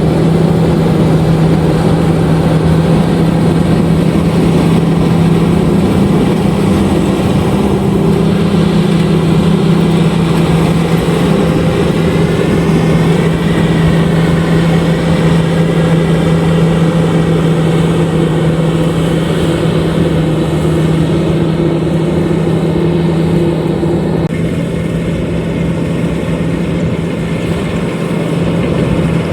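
LOVOL RG130EVO combine harvester running steadily at working speed, a loud continuous mechanical drone with a strong steady hum. About three-quarters of the way through, one higher hum drops out and the sound eases slightly.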